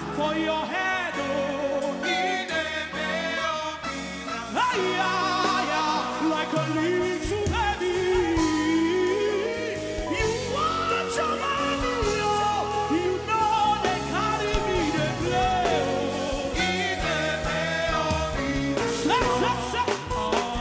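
Live gospel worship music: a band with drums and keyboards playing under a singer's long, sliding vocal lines. The low end of the band fills out about seven seconds in.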